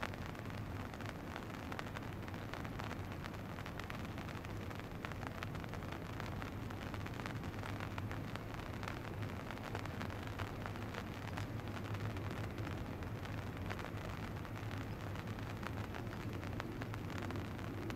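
Steady shoreline ambience: a dense fine crackle over a low, even hum.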